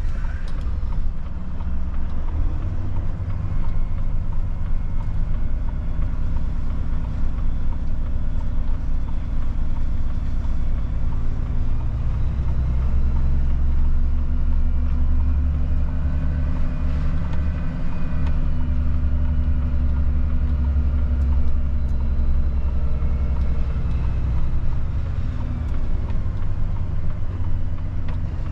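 Volvo FH truck's diesel engine and tyre noise while driving, a steady low drone whose pitch climbs slowly about halfway through and then holds.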